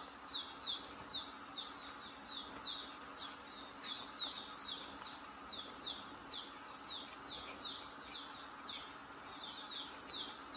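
A small bird chirping over and over: short, high chirps that fall in pitch, about three a second, over a faint steady hum.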